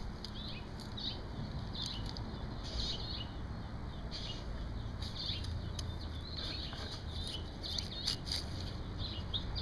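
Small birds chirping in short, repeated notes, with a low rumble of wind or handling underneath.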